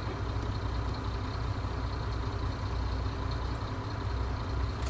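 Mercedes-Benz 1620 truck's diesel engine idling steadily, heard from inside the cab.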